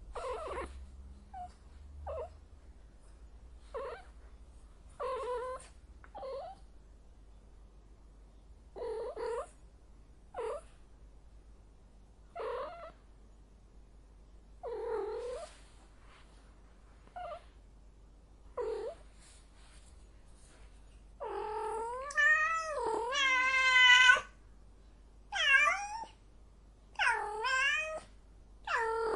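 Female cat in heat calling: short meows and yowls every second or two, then a long, loud, wavering caterwaul about three quarters of the way through, followed by several more loud yowls.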